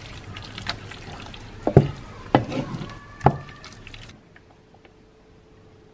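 Wooden spoon stirring fettuccine through thick cream sauce in a frying pan: wet, sticky squelching with a few sharper smacks about two and three seconds in. About four seconds in it drops to a faint steady hum.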